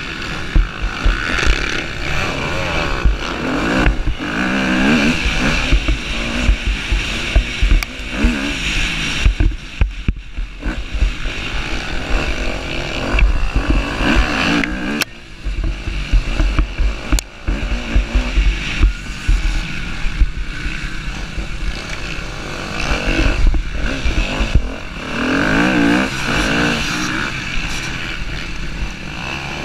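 Motocross dirt bike engine revving hard and rising and falling in pitch through the gears as it races around the track, with brief throttle cuts every so often.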